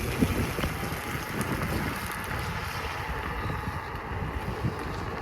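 Wind buffeting the microphone, with an uneven low rumble.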